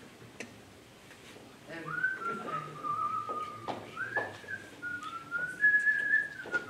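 A person whistling a wavering tune, starting about a second and a half in, with a few light clicks and knocks as tableware is set down.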